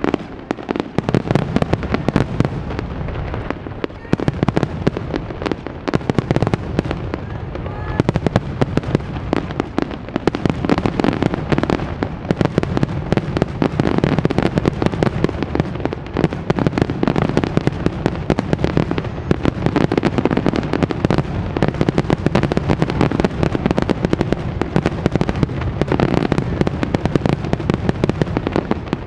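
Aerial fireworks shells bursting in a rapid, continuous barrage, many bangs a second over a steady low rumble: the dense volley of a display's finale.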